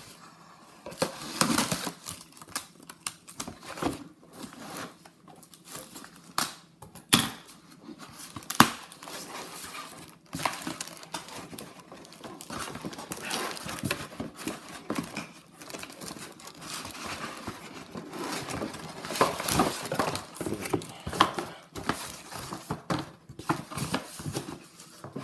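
Packaging of a cardboard mystery box being opened by hand: paper and plastic crinkling and tearing in irregular rustles, with two sharp clicks about seven and eight and a half seconds in.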